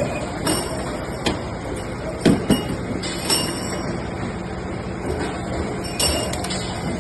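CNC auto-feed double-end pipe chamfering machine running steadily, with sharp metallic clinks and knocks about every second, the loudest a close pair about two and a half seconds in.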